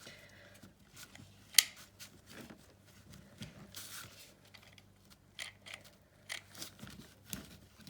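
Handling noises from craft work on a small hoop with fabric: scattered light clicks and brief rustles, with one sharp click about a second and a half in.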